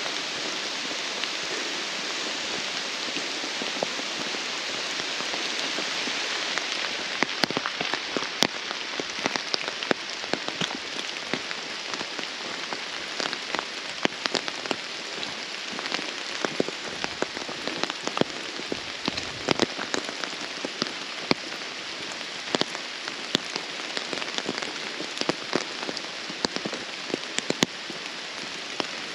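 Rain in woodland: a steady hiss of falling rain, joined about seven seconds in by many irregular sharp taps of drops landing close by.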